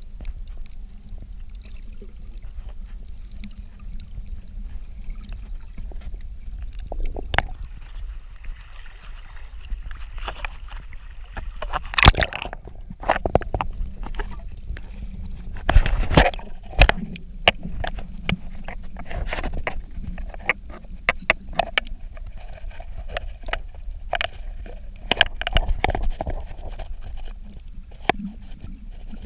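Water sloshing and gurgling around a camera held just under the surface, sounding muffled, over a steady low rumble with many irregular clicks and knocks.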